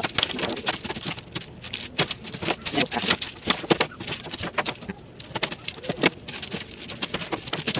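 Kitchen knife cutting the tough rind off a large pineapple: an irregular run of crisp slicing and chopping strokes, several a second.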